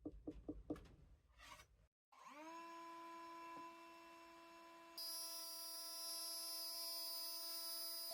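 A woodworking router spinning up: a run of light knocks, a brief gap, then the motor whine rises and settles to a steady pitch about two seconds in. About five seconds in, a higher whine joins and it gets louder.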